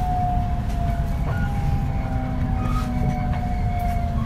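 223 series 1000 subseries electric multiple unit running, its Hitachi IGBT inverter and traction motor whine gliding slowly downward over a steady low rumble of wheels on rail as the train slows.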